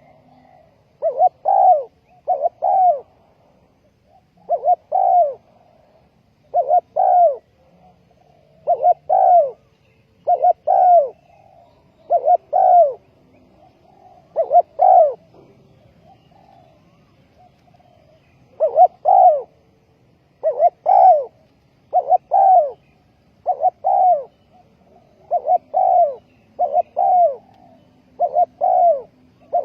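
Spotted dove cooing: a loud two-part coo phrase repeated about every two seconds, with a pause of a few seconds midway.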